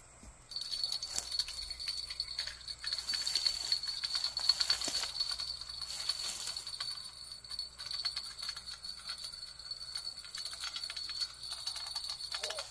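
Fishing reel ticking and clicking in quick runs as a hooked carp is played on a long rod, over a steady high-pitched insect drone.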